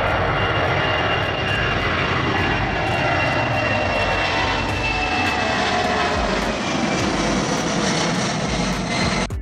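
Jet noise from a Boeing C-17 Globemaster III's four turbofan engines as it flies low past, a steady roar with a whine that slowly falls in pitch. It cuts off suddenly at the end.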